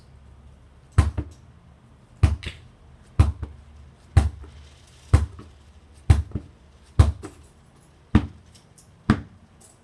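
A football bounced on a hard floor and caught in goalkeeper gloves, nine times about a second apart: each a sharp thump followed closely by a softer second hit.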